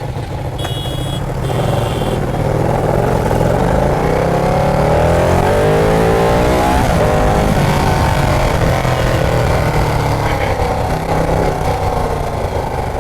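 Ducati Panigale 959's Superquadro L-twin engine accelerating. Its pitch climbs for a few seconds, drops at a gear change about seven seconds in, climbs again, then eases off near the end. A few brief high tones sound about a second in.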